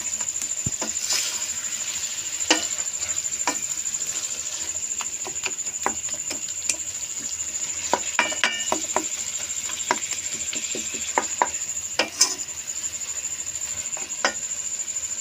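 A wooden spatula stirring and scraping spiced minced beef keema around a kadhai as it fries in oil, with a steady sizzle and irregular knocks and clicks of the spatula against the pan. This is the bhuna stage: frying the meat with its spices.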